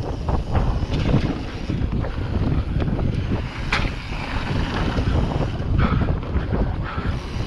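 Wind buffeting the microphone of a mountain bike's on-board camera as the bike rolls and rattles over a dirt trail, with a sharp clack about four seconds in.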